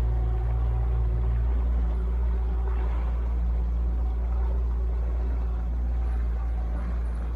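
60 hp outboard motor running steadily with the boat under way, a constant low drone.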